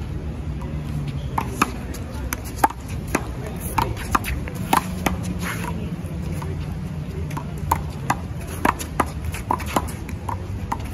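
Handball rally: a rubber handball struck by hand and smacking off the wall and court, making a quick, irregular series of sharp slaps, many a second in places, with a couple of brief lulls.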